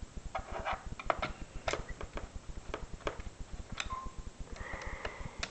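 Irregular small clicks and scrapes of a screwdriver working screws into the plastic case of an Esky radio-control transmitter as it is put back together.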